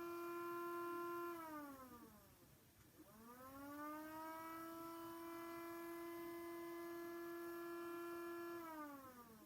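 Electronic siren wailing: a steady tone holds, drops away in pitch about a second and a half in, climbs back up about three seconds in and holds again, then starts to fall near the end.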